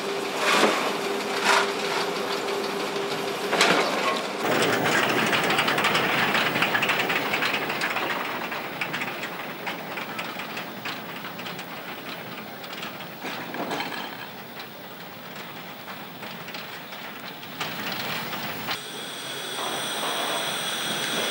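Saxon-Meyer narrow-gauge steam tank locomotives at their depot: in the first few seconds, sharp clanks over a steady hum as coal is shovelled onto a conveyor. After that comes steady steam hissing and locomotive noise, loudest about five seconds in and then easing, with a high steady hiss near the end.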